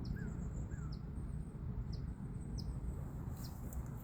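Small birds chirping outdoors: short high chirps repeated about every half second, with a few lower hooked call notes in the first second, over a steady low rumble.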